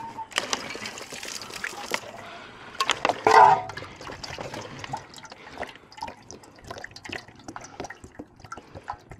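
Water poured from a plastic bottle into a shallow drinking dish, trickling and splashing, with a brief louder burst about three seconds in.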